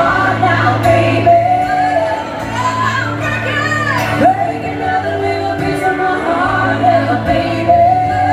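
Live country band playing with a woman singing long, held notes over a steady bass line, heard through the PA.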